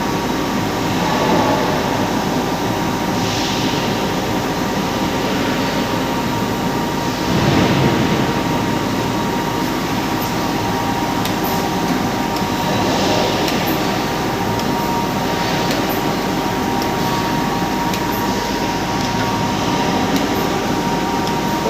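Hydraulic grinder machine running steadily: a constant mechanical rumble with a steady whine over it, swelling briefly about seven seconds in.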